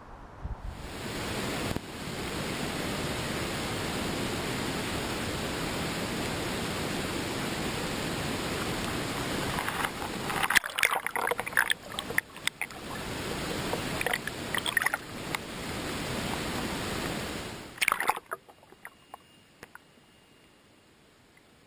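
Water rushing steadily, then a run of sharp splashes, after which it goes much quieter with a few small drips or taps near the end.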